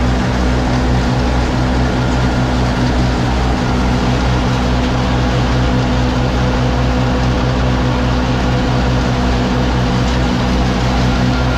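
Gehl forage blower driven by a Case 830 tractor, blowing chopped corn silage up the pipe into an upright silo while a chopper box unloads into its hopper. A loud, steady run of tractor engine and blower fan with a rushing hiss, and a slight low pulsing underneath.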